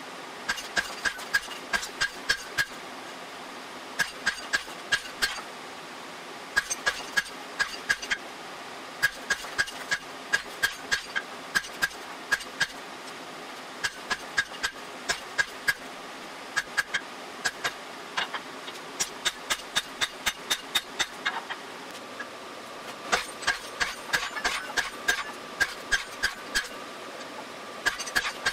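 Hand hammer striking red-hot steel on an anvil in runs of quick blows, about four a second, with short pauses between runs. Each blow rings.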